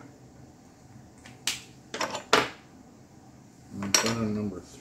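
Small plastic model-kit parts being handled and set down, with three sharp clicks in the middle.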